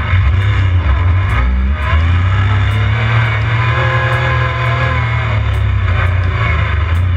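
Side-by-side UTV engine running under load on a sand track, heard from inside the cab, its pitch shifting about two seconds in and then holding steadier.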